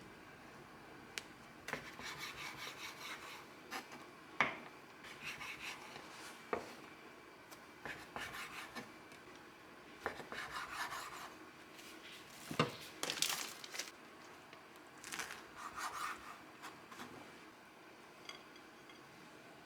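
Repeated bursts of rubbing and scraping, as of scrubbing or wiping a hard surface, broken by a few sharp knocks and light clatters of hard objects. The loudest knock comes about two-thirds of the way through.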